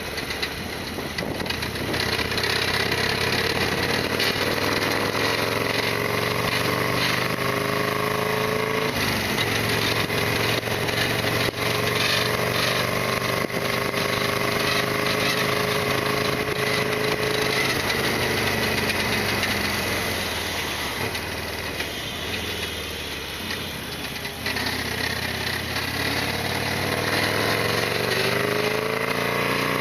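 Harley-Davidson Sportster XL1200R's 1200 cc air-cooled V-twin under way, its pitch climbing and then dropping at a gear change about nine seconds in. It eases off for a few seconds past the middle and climbs again near the end, under steady wind hiss.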